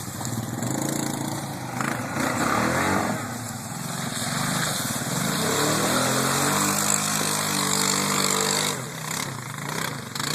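ATV engine revving under load. Its pitch climbs from about halfway through, holds high for a few seconds, then eases off shortly before the end.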